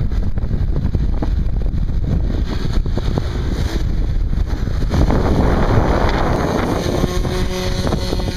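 Strong wind buffeting the microphone. Near the end, the steady tone of an RC model plane's motor joins in as the plane rolls out for takeoff.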